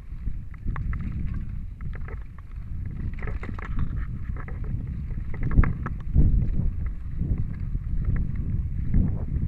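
Scott Spark 10 full-suspension mountain bike riding fast over a dirt singletrack: wind rumbling on the microphone and tyre noise make a steady low roar, with scattered clicks and rattles from the bike over bumps.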